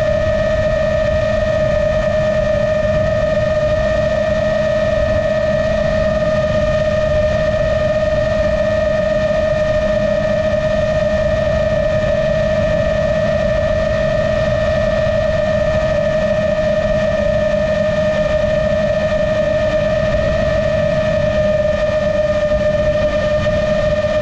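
Motors and propellers of a GepRC MOZ-7 long-range FPV quadcopter, heard from its onboard camera, holding a steady cruise: an even whine at one unchanging pitch over a low rush of wind.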